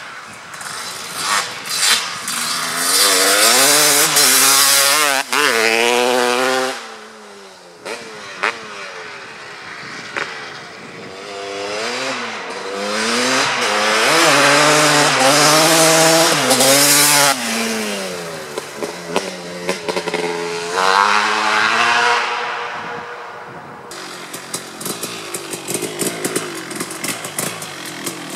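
Kawasaki KX250 two-stroke motocross bike with an FMF Gnarly expansion pipe, revving hard and shifting through the gears as it rides past, its engine note climbing and dropping in steps over two long loud passes and a shorter one. About three-quarters through the sound changes suddenly to choppy, uneven revs.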